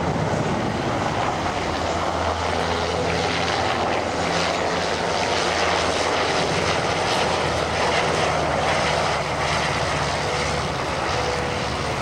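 UH-60J Black Hawk rescue helicopter flying a maneuvering display pass, its main rotor and twin turboshaft engines running at a steady level.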